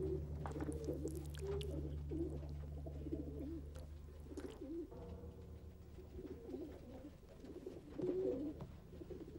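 Pigeon cooing repeatedly, over a low steady drone that shifts about five seconds in.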